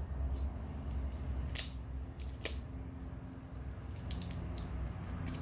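Several sharp, light clicks and handling noises from the small parts of a tyre plug repair kit being handled, over a steady low hum.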